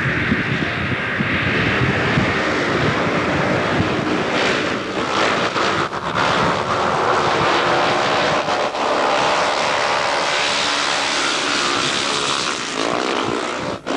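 Speedway motorcycles' 500 cc single-cylinder engines running flat out, the pitch rising and falling as the bikes pass.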